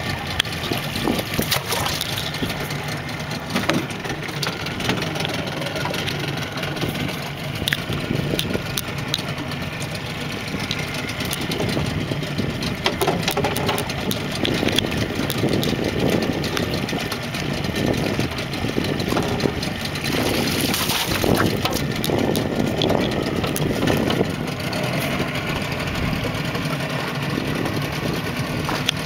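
A 40 hp outboard motor on a small open boat idling steadily.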